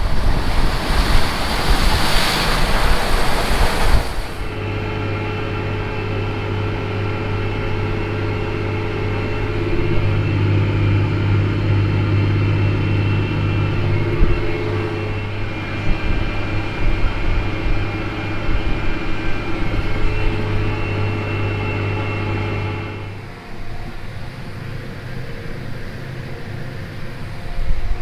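Wind buffeting the microphone for the first few seconds, then a large farm machine's engine running steadily with a strong low drone and a higher whine. About 23 seconds in, it drops to a quieter, rougher rumble.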